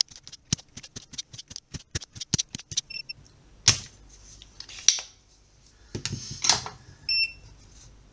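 Desoldering a chip's pins with a spring-loaded solder sucker and soldering iron. There is a run of quick light clicks, then two sharp snaps as the pump's plunger fires, a longer rushing scrape, and two short high beeps.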